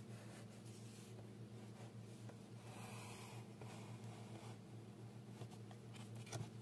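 Soft scratching and rubbing of a hand and drawing tools on paper and a wooden ruler, over a steady low hum. A few sharp taps come near the end.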